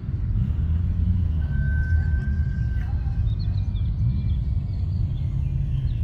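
Steady low rumble of car engines running, with no clear rise or fall in pitch.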